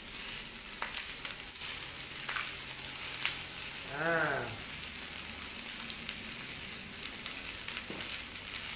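Choy sum leaves and stems frying in hot pork fat in a wok, a steady sizzle with a few light ticks as pieces drop in.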